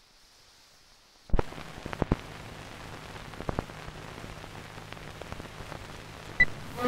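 Crackle and hiss of an old film soundtrack, with a faint low hum and scattered sharp pops, starting about a second in. Near the end comes one short, high beep, the sync beep of a countdown leader.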